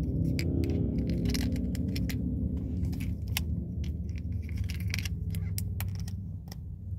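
Fingers working open a small cardboard Mentos box: a string of small, sharp clicks and crinkles, over the low steady hum of a car interior.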